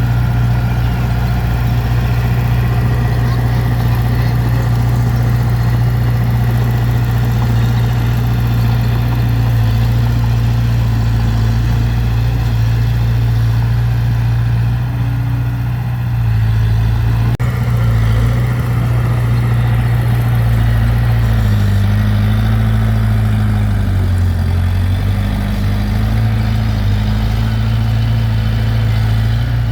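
Large diesel engine of heavy earthmoving machinery running steadily, with its engine note dipping and rising a few times in the second half as the load changes.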